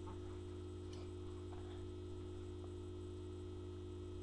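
Steady electrical hum with a few faint clicks in the first three seconds, as drumsticks are handled and caught during a twirling trick.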